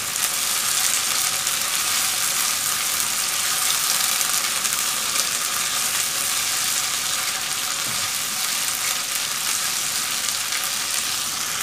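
Sliced onions and ginger-garlic paste sizzling steadily in hot oil in a non-stick pan while a silicone spatula stirs them. They are being fried down until the raw smell of ginger and garlic goes.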